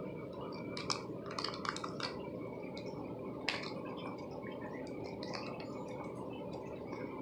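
Scattered small clicks and crinkles of a Kinder Joy egg being unwrapped and opened by hand, with one sharper click about three and a half seconds in.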